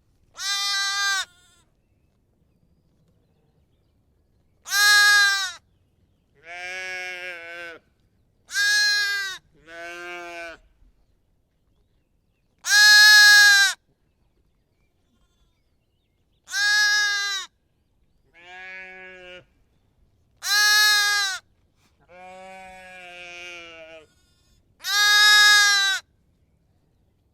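Lamb bleating over and over: about eleven separate bleats, each around a second long, with silent gaps between them. Some bleats are loud and others much softer.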